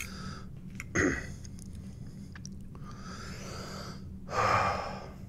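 A man breathing loudly between bites: a short sharp breath about a second in, a softer one around three seconds, and a longer, louder breath near the end, with faint mouth clicks from eating.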